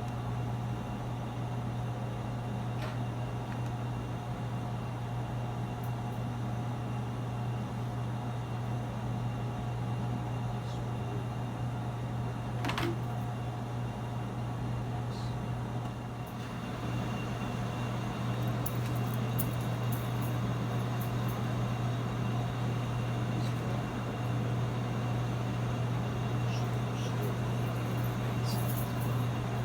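Steady low machine hum with a constant background rush, broken by one sharp click about halfway through and a few faint ticks later on.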